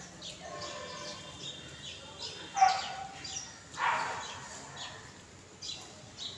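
Birds calling: a series of short chirps, with two louder, harsher calls about two and a half and four seconds in.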